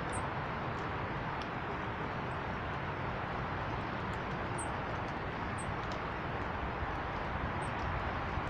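A few short, very high-pitched bird chirps, spaced seconds apart, over a steady rushing background noise.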